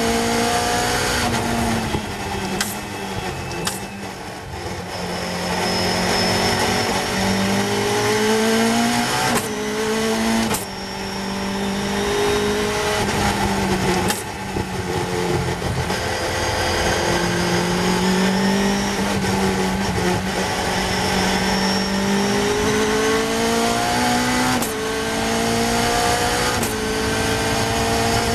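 Caterham Seven's Cosworth 2.4-litre four-cylinder engine heard from the open cockpit at racing speed. Its note climbs in pitch through the gears, breaking off sharply at each gearshift. It falls away while slowing for a corner a few seconds in, then pulls up again.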